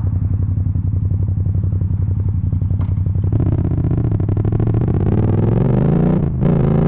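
Yamaha MT-07's parallel-twin engine through a full Akrapovic titanium exhaust, first running at a steady low speed, then revving up as the bike accelerates about three seconds in, with a brief drop near the end that fits a gear change before it climbs again. The sound is loud and distorted from the overloaded microphone.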